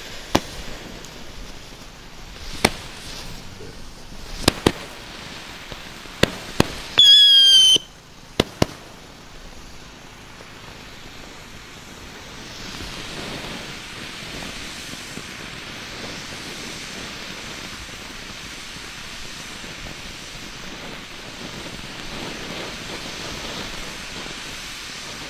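Weco Pyrosinfonie firework battery firing. In the first nine seconds comets go up and burst with sharp bangs, and a loud whistle lasts under a second at about seven seconds in. From about twelve seconds on a fountain hisses steadily as it sprays sparks.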